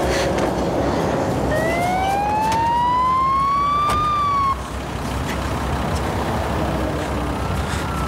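Emergency vehicle siren wailing: one slow rise in pitch starting about a second and a half in, which breaks off after about three seconds, then a second wail falling in pitch near the end, over a steady background rumble.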